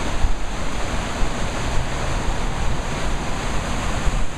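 Steady rushing noise of a flood-swollen river in spate, mixed with gusty wind buffeting the microphone.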